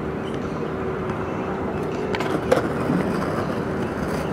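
Skateboard or scooter wheels rolling on concrete in a skate park: a steady rumble with a faint hum, and a few sharp clacks about two seconds in.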